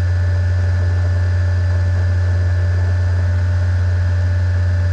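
Steady low electrical hum with a faint even hiss: the background noise of the recording setup.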